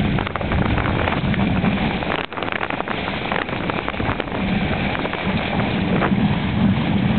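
Strong wind buffeting the microphone and spray splashing over a trimaran sailing fast in gusty 20-knot wind: a loud, steady rush with a crackling patter of spray, easing for a moment a couple of seconds in.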